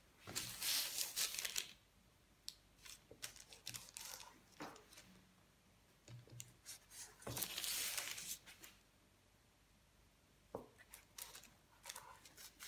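Kitchen knife cutting through a layered dough disc and scraping the parchment paper beneath it on a wooden board: two faint rasping strokes of about a second and a half each, one near the start and one about seven seconds in, with scattered light taps and paper rustles between.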